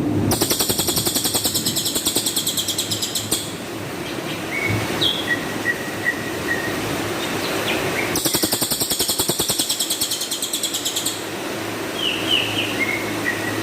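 Cililin songbird singing two harsh, very rapid trills of about three seconds each, with soft short chirps between them. These are the 'tembakan kasar' (harsh shot) phrases that keepers use as a training master for songbirds.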